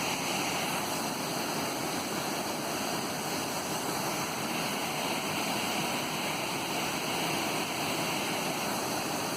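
Dainthlen Falls: a steady rush of falling and flowing water.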